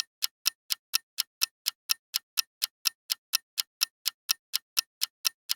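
Clock-ticking sound effect used as a quiz countdown timer: even, sharp ticks about four times a second.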